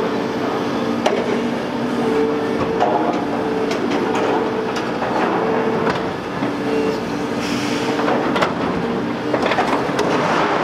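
Liebherr R930 demolition excavator working under load: its engine and hydraulics give a steady hum that drops out and comes back several times, with scattered knocks and clatter as the demolition shear cuts into the building and debris falls.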